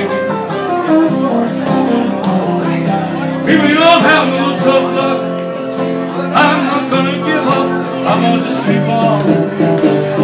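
A man singing live while playing an acoustic guitar.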